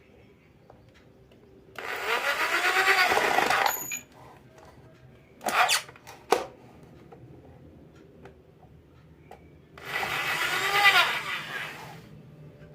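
Bosch GSB 500 RE corded impact drill run twice for about two seconds each, its motor whine climbing as the trigger is squeezed and falling away as it is released. Two short sharp knocks come between the two runs.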